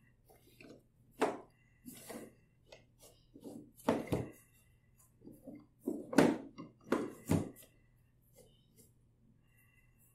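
Wooden toy train track pieces knocking and clacking together as they are handled, fitted together and set down on a table, in irregular single and double knocks, the loudest in the second half.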